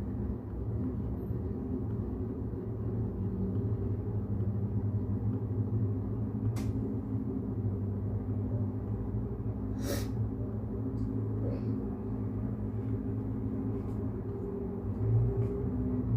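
Brown noise playing as a steady low rumble, with a sharp click about six and a half seconds in, a louder short click about ten seconds in, and a few faint ticks after that.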